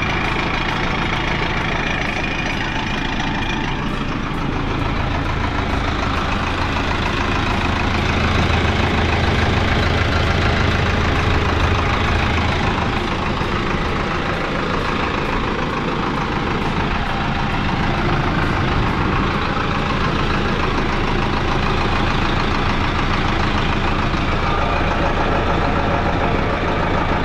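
Diesel engine of a YTO NLX 1054 tractor running steadily, with a low hum that swells slightly for several seconds in the first half.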